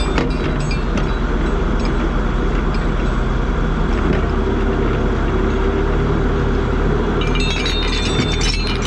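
Heavy tracked logging machine's diesel engine running steadily. From about seven seconds in, metal clinking and squeaking joins it.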